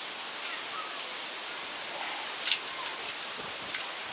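Steady hiss of wind through trees and rustling leaves in stormy weather. About halfway in, a scatter of light clicks and rattles.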